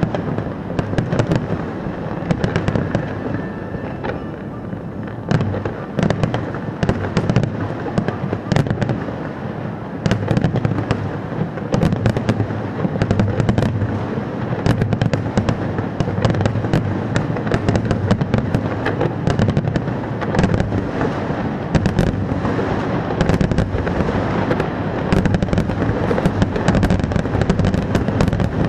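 Fireworks going off in a continuous barrage: many overlapping bangs and crackles with a constant low rumble, growing denser from about ten seconds in.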